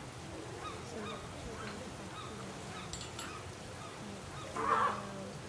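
A young elephant seal gives one short call, about half a second long, near the end.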